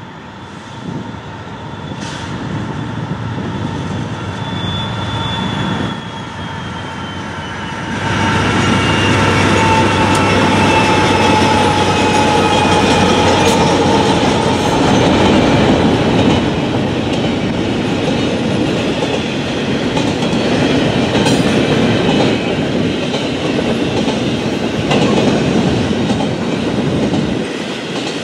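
Freight train of double-stack container cars rolling past, steel wheels clicking over rail joints under a steady rumble, with a thin wheel squeal that glides lower early on. The sound grows louder about eight seconds in and stays loud.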